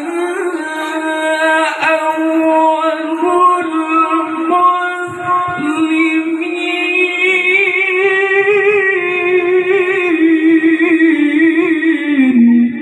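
A male qari reciting the Qur'an in the melodic tilawah style, drawing out one long unbroken ornamented phrase. The pitch wavers around a held note, climbs higher in the second half and falls just before the end.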